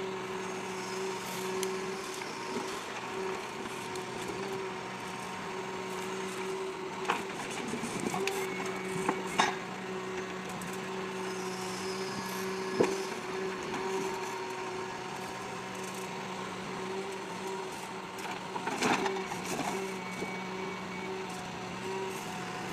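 Log-grabbing forestry machine's engine and hydraulics running with a steady hum, broken by a few sharp knocks of logs being handled.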